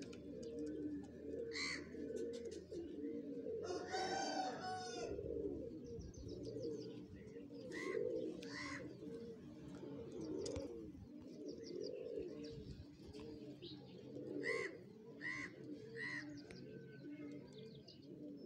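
Domestic pigeons cooing steadily, many low coos overlapping, with short high chirps several times and a louder call about four seconds in.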